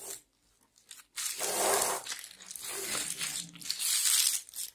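Clear plastic packaging crinkling and rustling as it is handled, starting about a second in after a near-silent moment.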